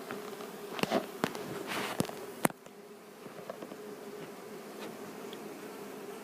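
A mass of Italian honey bees buzzing in an open hive as a steady hum. A few sharp clicks and knocks come in the first half, the loudest of them about two and a half seconds in.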